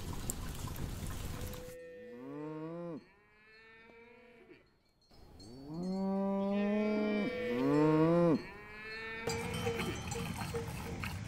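Cattle mooing: a series of long moos, some overlapping, each swelling and then falling in pitch, from about two seconds in until about nine seconds in.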